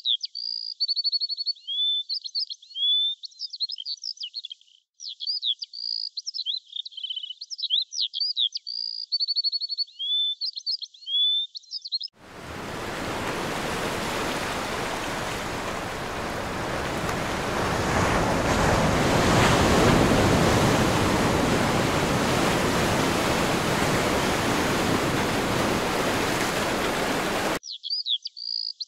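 Small birds chirping and twittering in quick, high calls. About twelve seconds in, a steady rush of ocean surf takes over, swelling for about fifteen seconds. The surf cuts off abruptly and the chirping returns.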